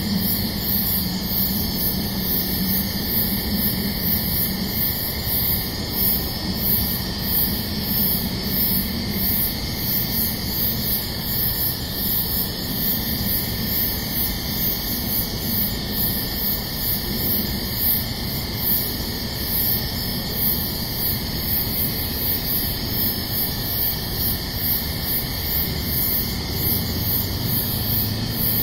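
Steady night-time background hiss with a high-pitched pulse repeating a little faster than once a second, and a faint low hum.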